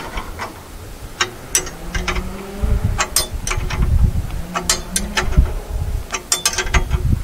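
Irregular metallic clicking and ratcheting from the hand-worked adjusters of a Norwood portable sawmill, over a low rumble and a faint steady squeal in the middle.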